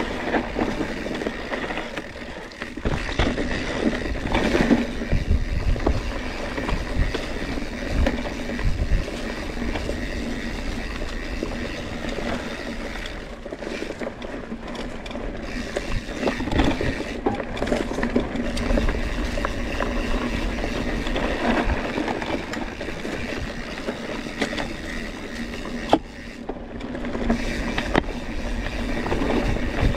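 Scott Spark RC mountain bike ridden over dry, dusty singletrack: continuous tyre noise on dirt with the bike rattling over rough ground and scattered clicks, and wind rumbling on the microphone.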